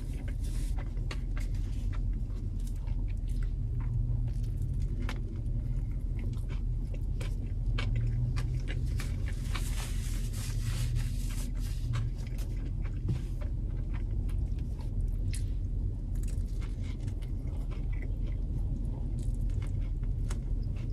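A person chewing a bread-roll sandwich, with many small wet mouth clicks, taking a fresh bite near the end. Under it is a steady low rumble.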